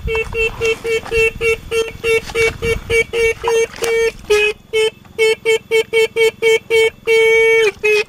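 Motorcycle disc horn on a Honda sounding in rapid short beeps, about three to four a second, with one longer blast about seven seconds in, while water drips over it.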